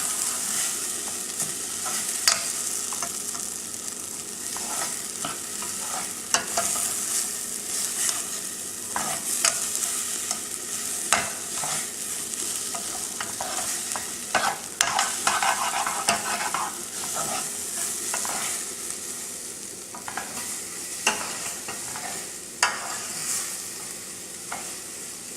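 Basmati rice frying in butter with spices in a pan, sizzling steadily while a utensil stirs and scrapes it, with frequent sharp clicks of the spoon against the pan.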